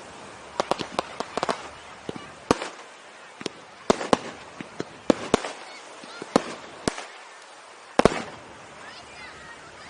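Fireworks going off: a string of sharp bangs and crackles at irregular intervals, the loudest about four and eight seconds in.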